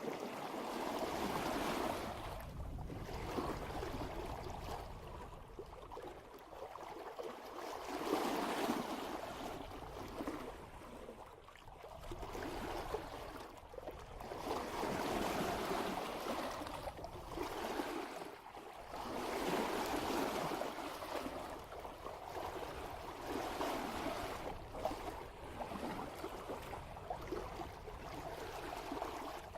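Water rushing and splashing at the bow of a sailboat under way at about 3 knots, swelling and easing every few seconds as the hull meets each wave.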